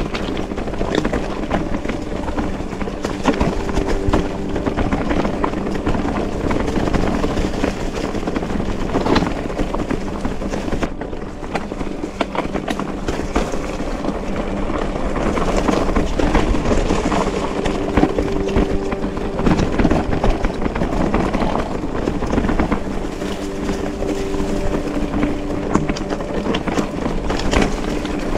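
Mountain bike riding a rough trail, recorded close on the bike: a steady rolling rumble with constant rattling knocks, and a low hum that comes and goes.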